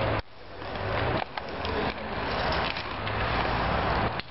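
Inline hockey play: skate wheels rolling on a concrete rink, a steady rough noise, with scattered sharp clacks of sticks and puck.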